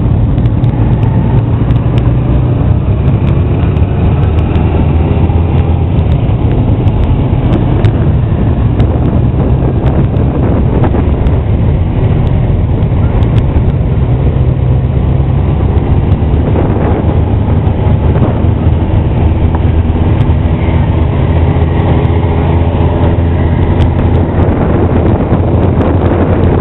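Motorcycle engines running in a slow group ride, heard from one of the moving bikes: a steady low rumble, with engine notes rising and falling in the second half.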